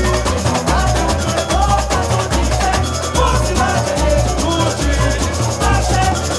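Samba school bateria playing a samba-enredo: a steady, pulsing surdo bass-drum beat under fast, busy shakers and other percussion, with a singing voice over the top.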